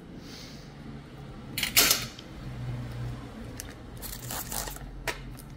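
Toenail nippers snipping a toenail: a loud snip about two seconds in, then a run of smaller snips in the second half.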